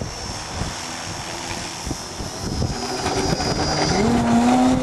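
Radio-controlled 72-inch Extra 330SC model plane's motor and propeller throttling up for takeoff, its note rising and growing louder over the last two seconds. Gusty wind buffets the microphone.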